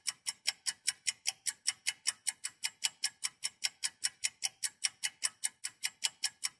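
Quiz countdown-timer sound effect: a fast, even ticking, between four and five ticks a second, counting down the answer time.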